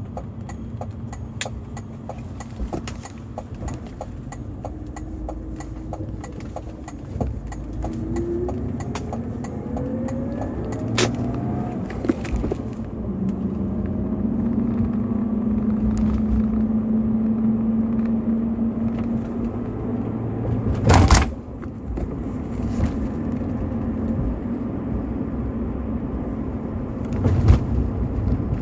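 BMW E46 320i's 2.0-litre M52TU inline-six running in stock form: the engine note climbs about eight seconds in, then holds steady for several seconds, with a sharp knock or bump a little after that.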